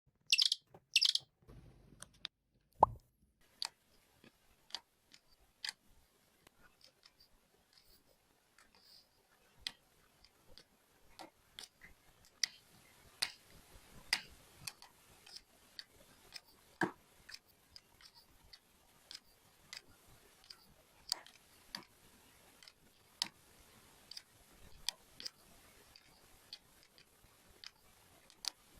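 Diamond painting: a drill pen pressing resin diamonds onto the sticky canvas, a string of small sharp clicks at irregular intervals, roughly one a second. Two brief louder scratchy bursts come right at the start.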